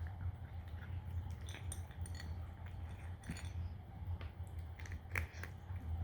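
Cat crunching dry kibble: irregular small crunches and clicks of kibble against the bowl, the sharpest about five seconds in.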